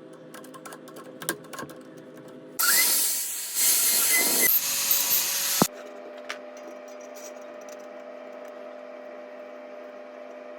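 Woodturning lathe's electric motor humming steadily with a few light clicks. A little over two seconds in, about three seconds of loud rushing noise follows as the spinning wood is worked, stopping abruptly with a click.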